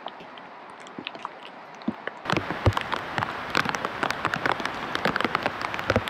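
Rain pattering, a crackle of many small drops that turns louder and denser about two seconds in.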